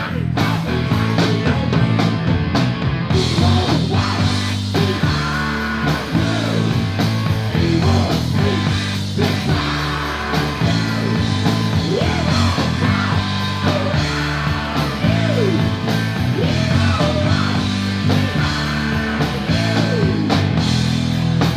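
Live rock band playing loudly, with electric guitar over bass and drums, the lead line bending up and down in pitch through much of it.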